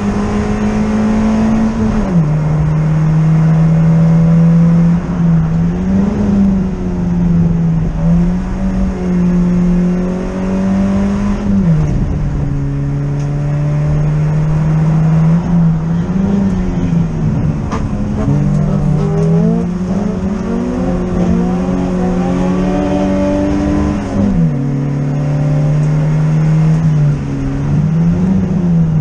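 Ford Fiesta Zetec four-cylinder rally engine running hard at high revs, heard from inside the stripped, roll-caged cabin over road and tyre noise. Its pitch holds steady for long stretches, steps down sharply about two seconds in, near the middle and again near the end, and wavers briefly between.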